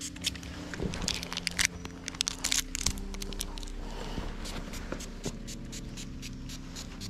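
Irregular crackling and scraping noises, thickest in the first three seconds, over soft background music with low held notes that change about three and five seconds in.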